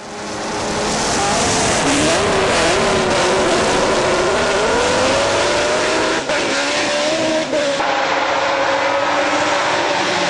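Judd V8 racing engine in an E36 BMW hillclimb car, running hard at high revs. Its pitch climbs over the first few seconds and then holds high, with two brief drops in level about six and seven and a half seconds in.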